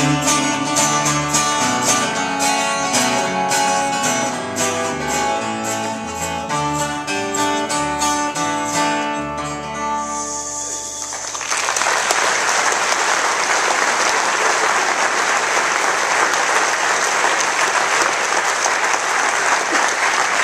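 Acoustic guitar and electric bass guitar playing the closing bars of a folk song, with a low bass line under plucked guitar notes. The music ends about half way through and audience applause follows to the end.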